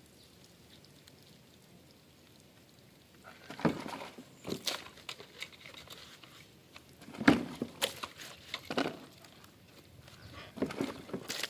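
Irregular knocks and short scraping rubs as plastic vacuum cleaner parts are handled and scrubbed clean, starting about three seconds in, with the loudest knock about seven seconds in.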